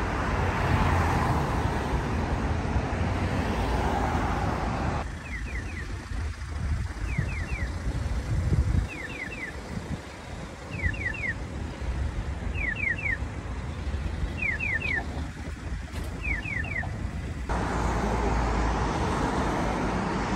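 Road traffic passing on a city street. A few seconds in it gives way to an electronic pedestrian crossing signal: groups of three quick chirps repeating evenly about every second and a half for some twelve seconds, over low traffic noise. Then the traffic noise returns.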